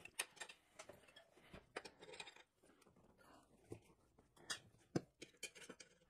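Faint, scattered clicks and taps of steel tire irons against a spoked motorcycle rim and knobby tire as the tire bead is levered onto the wheel, with a sharper knock about five seconds in.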